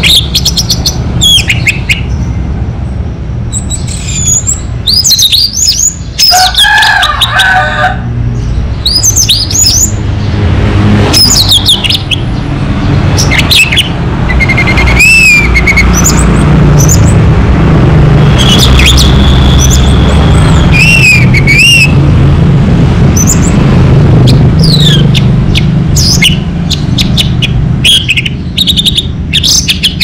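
Orange-headed thrush singing in full voice: a busy run of sharp whistled phrases with quick up-and-down glides, and one long held whistle about two-thirds of the way through. A steady low rumble runs underneath.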